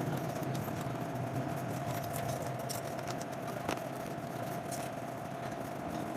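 Steady background hum with a constant mid-pitched tone over it, and a few faint light clicks, one a little sharper in the middle.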